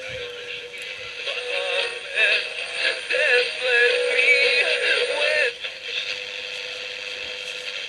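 Medium wave AM broadcast of music with singing, played through a homemade transistor TRF radio, thin and narrow in sound, with a steady tone underneath. The singing stops about two-thirds of the way through, leaving the steady tone.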